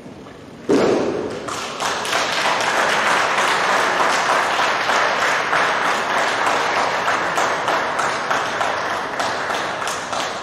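A judoka landing hard on the tatami in a breakfall about a second in, a single loud thud and slap. Audience applause follows and goes on, fading slowly near the end.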